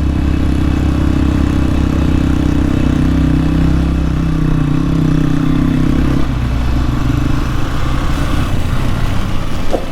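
Hero XPulse 200 motorcycle's single-cylinder engine running steadily while riding, its note changing and dropping about six seconds in.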